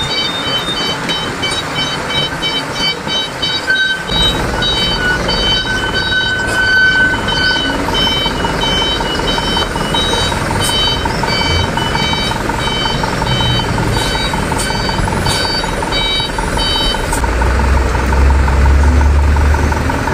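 Mitsubishi Canter light truck's diesel engine running as the truck reverses, with its reversing alarm sounding short repeated beeping tones at several pitches. The beeping stops a few seconds before the end, and the engine gets louder near the end.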